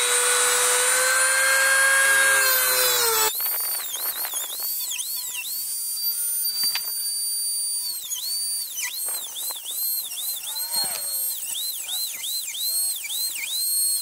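Dremel rotary tool with a cut-off wheel cutting through model-railway rail at a joint: a steady high whine that changes abruptly about three seconds in, after which the pitch dips over and over as the wheel bites into the metal rail.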